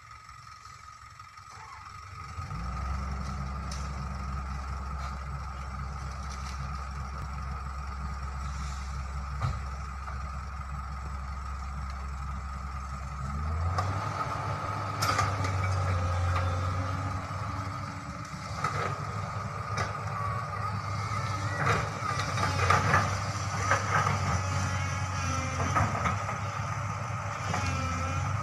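Hydraulic excavator's diesel engine working under load, its note rising about two seconds in and stepping up again midway, with bucket clanks and the scrape of the bucket in dry soil through the second half.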